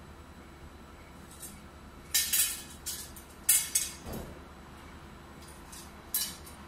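Two perforated metal mounting brackets clinking and rattling against each other as they are handled, in three short bursts: at about two seconds, about three and a half seconds, and about six seconds.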